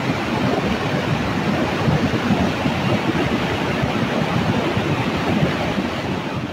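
Swollen, muddy Ciliwung river in flood rushing past in a steady, heavy wash of water noise, easing off slightly near the end.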